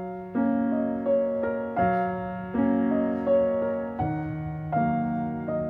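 Background piano music, with a soft chord or note struck about every three quarters of a second.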